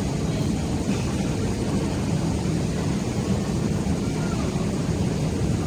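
Steady low rumble of an underground railway station's background noise while riding an escalator, with no distinct events standing out.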